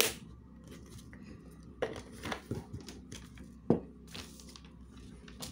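A small plastic glitter container handled on a paper-covered table: a few sharp taps and clicks with light paper rustling, the loudest knock about three and a half seconds in.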